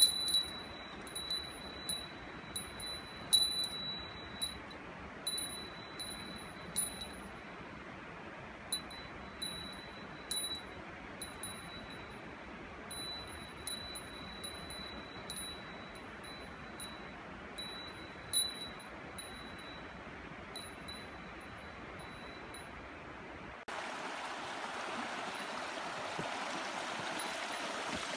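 A small metal bell, of the kind hikers carry against bears, jingling in irregular bright rings over the steady rush of a mountain stream. About 24 seconds in, the bell stops and a louder, steady rushing noise takes over.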